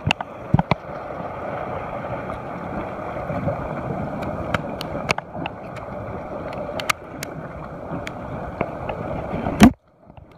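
Steady wash of sea waves against a rocky shore, with wind on the microphone and scattered sharp ticks. A loud knock near the end, then the sound cuts out suddenly for a moment.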